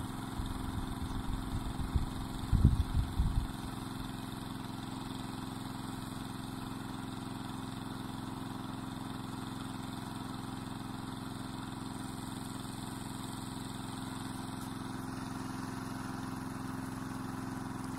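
A motor running steadily, a constant engine-like hum with an unchanging pitch. Low rumbling bumps come over it during the first three seconds or so.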